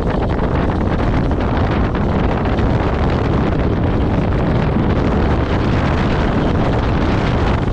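Loud, steady wind buffeting a chest-mounted GoPro Hero 8's microphone during a fast straight ski descent at about 60–75 km/h, with the skis running over packed snow mixed in.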